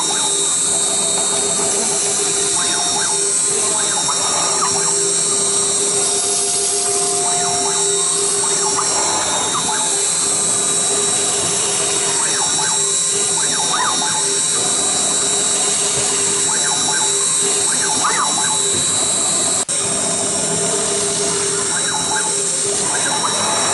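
Redsail CNC router's spindle running with a steady high whine as the bit engraves a circuit board, with uneven cutting noise under it. One sharp click with a brief drop in level comes a few seconds before the end.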